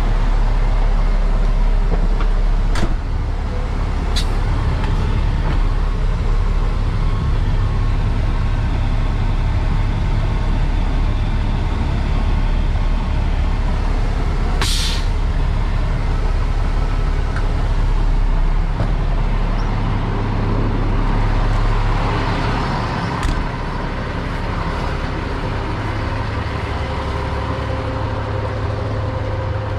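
Peterbilt 337 tow truck's diesel engine running steadily while the truck is moved into position, with a short, loud air-brake hiss about halfway through. A couple of sharp clicks sound in the first few seconds.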